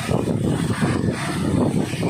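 Waterfall pouring into a rocky pool: a steady rush of water.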